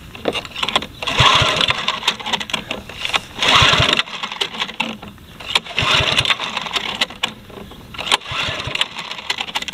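Honda GVC140 lawn mower engine being pull-started by its recoil rope. Several pulls a couple of seconds apart, each a short whir of the engine cranking over, and it does not catch.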